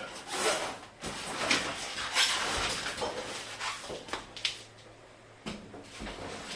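Irregular rustling and scraping with a few sharp clicks and light knocks: hands handling the packing and fittings of a new refrigerator.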